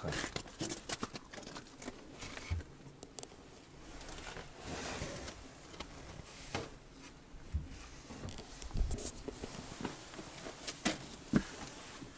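Scattered clicks, knocks and rustling of people moving about and handling things in a small enclosed room, with a few louder knocks spread through.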